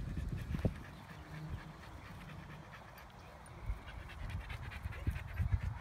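A dog panting close by, the breaths clearest in the second half, over a low rumble.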